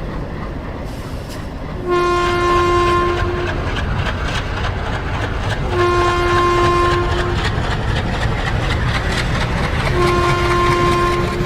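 Train running with a steady rumble while its horn sounds three times, about four seconds apart, each blast a second to a second and a half long.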